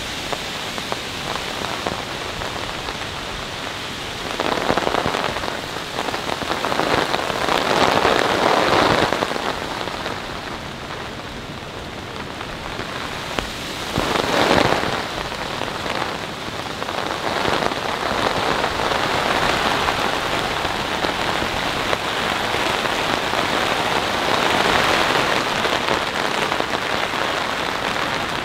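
Heavy rain coming down on a tarp overhead and the ground around it, driven by wind. The rain noise swells in gusts several times, heaviest for a few seconds near the start and again in a short surge about halfway through.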